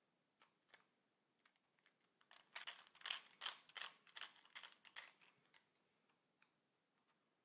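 Small metal clicks and scrapes of a driver bit working screws out of an MG42 trigger grip. A few scattered clicks, then a quick run of about a dozen clicks in the middle, then a few more.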